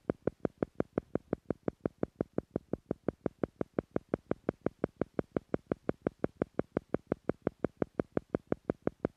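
Theta-frequency pulse track for meditation: a steady run of short, even beats at five a second, meant to slow brain waves to the theta level.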